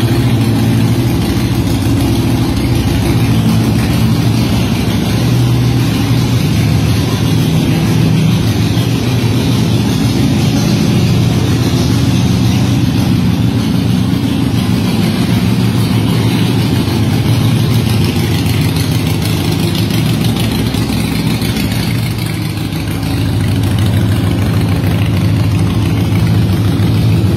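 Harley-Davidson Iron 883's air-cooled V-twin, breathing through a Vance & Hines aftermarket exhaust, idling loudly and steadily, with a brief dip in loudness about three quarters of the way through.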